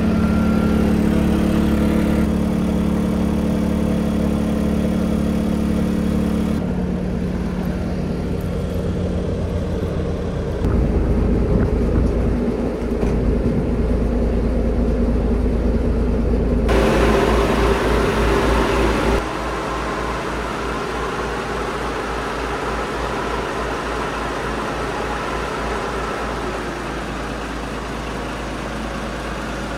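Engines running steadily, the sound changing abruptly several times: a portable generator, then a fishing boat's diesel engine idling in its engine room while hydrogen is fed into its air intake for carbon cleaning.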